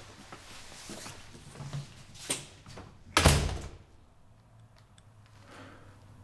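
A door is slammed shut about three seconds in: one heavy bang that rings on briefly. Before it come a few faint knocks and rustles.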